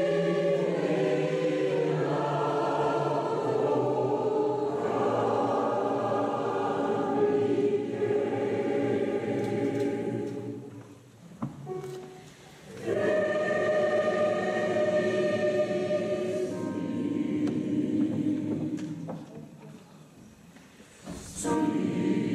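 Large mixed choir of men and women singing, stopping twice for short pauses between phrases: once about halfway through and once near the end.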